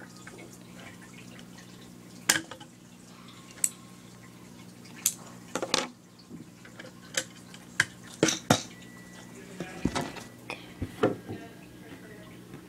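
Plastic Lego pieces being handled and pulled off the model: a dozen or so sharp clicks and clacks at irregular intervals, over a faint steady hum.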